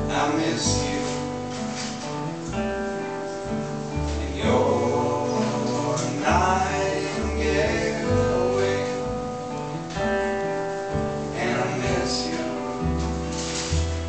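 Live acoustic string band playing: strummed acoustic guitars over plucked upright double bass notes.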